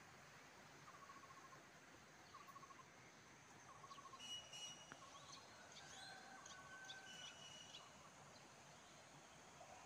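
Faint outdoor birdsong: a short pulsed call repeating about once a second, joined by higher chirps and whistles in the middle stretch, over a quiet background hiss.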